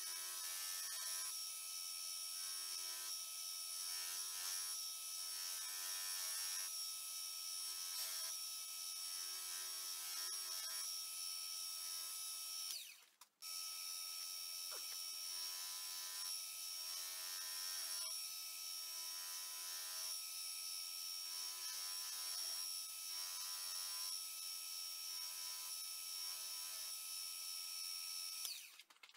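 Buffing wheel spinning on a drill-press spindle with a steady motor whine, while a knife handle scale is pressed against it in passes to polish out sanding scratches with buffing compound; the rubbing noise swells and fades about once a second. It drops out briefly about 13 seconds in.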